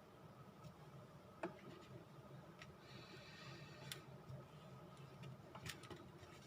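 Near silence with a few faint, sharp clicks and taps and a brief soft rustle, from paper and craft supplies being handled at a work table.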